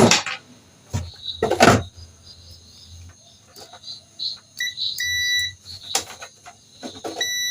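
Digital multimeter in continuity mode beeping as its probes touch across the blender's overload switch: a short beep, then a longer one, and another near the end, showing the switch conducts. A couple of knocks come first.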